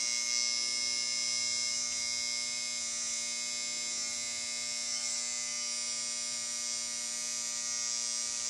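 Electric hair clippers running with a steady, unchanging buzz.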